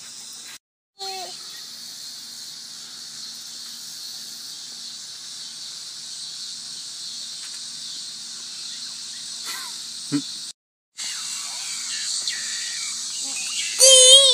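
Steady high chirring of insects, likely crickets, with a few short bits of a child's voice and a loud high-pitched child's squeal near the end. The sound cuts out completely twice, briefly.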